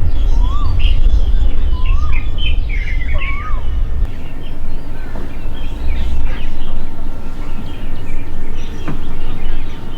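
Birds calling: a whistled note that rises and falls, repeated three times in the first few seconds, over quicker high chirps. The chirping thins out after about four seconds. A low rumble runs underneath and fades about four seconds in.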